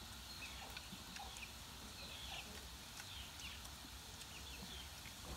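Birds chirping faintly: many short, high chirps that fall in pitch, scattered irregularly throughout.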